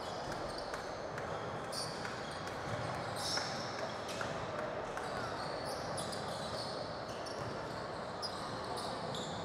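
Basketball game in a gym: the ball bouncing on the hardwood court, sneakers squeaking in short high chirps, and players' voices in the echoing hall.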